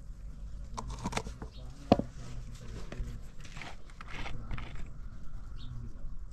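Small clicks and knocks of a salt jar and spoon being handled, with one sharp knock about two seconds in as the jar is set down. Then plastic crackling as the cap of a plastic oil bottle is twisted open, over a low steady hum.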